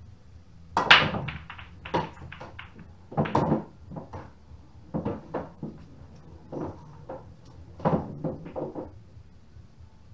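Break shot on a pool table with red and yellow balls: the cue ball hits the rack with a loud crack about a second in, then the balls clack against each other and the cushions. Further clusters of knocks and clacks follow over the next several seconds.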